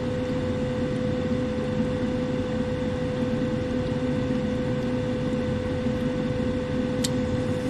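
Furnace starting its heating cycle on a new control board: a steady hum from the draft inducer motor with one held tone, while the igniter heats before the burner lights. A single short click comes near the end.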